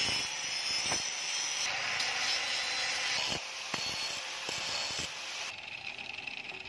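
Electric angle grinder with an abrasive disc grinding a forged steel kitchen-knife blade: a steady high whine over harsh grinding noise. About five and a half seconds in, the grinding drops away to a fainter noise.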